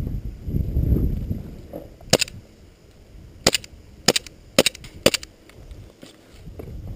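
Airsoft pistol firing: about six sharp cracks between two and five seconds in, some in quick pairs. A low rumbling noise comes first, in the opening second and a half.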